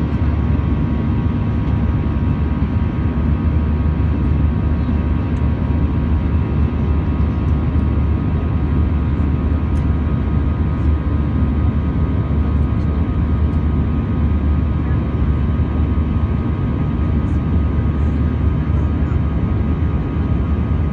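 Steady jet airliner cabin noise at cruise, heard from a window seat beside the wing's turbofan engine: a constant low rumble with a faint steady whine above it.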